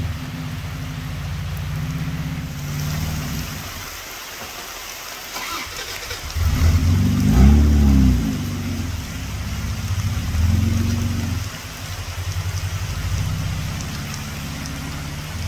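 Toyota Land Cruiser's engine labouring at low speed as it crawls over mud and rocks. It dips about four seconds in, then revs up, loudest between about six and eight seconds in, and settles back to steady low-speed running.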